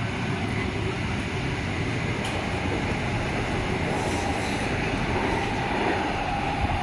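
Adelaide Metro 4000 class electric train running through the station: a steady rumble of wheels on rail that slowly grows louder, with a steady whine coming in about halfway through.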